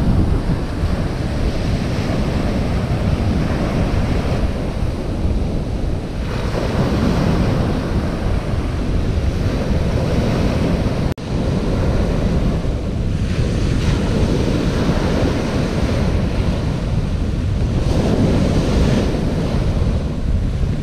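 Rough surf breaking and washing up a shingle beach, swelling every few seconds as each wave comes in, with strong wind buffeting the microphone. There is a brief dropout about halfway.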